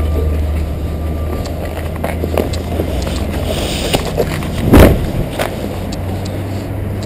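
A body-worn action camera scraping and bumping against brickwork as its wearer climbs out through a gap, with small knocks and one loud thump a little under five seconds in, over a steady low rumble.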